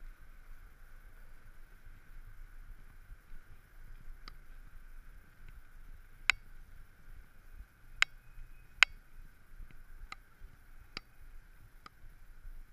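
Mountain bike rolling over a paved sidewalk: a steady rolling noise with a scattering of sharp clicks and knocks as the bike jolts over paving joints, two of them louder, about six seconds in and shortly before nine seconds.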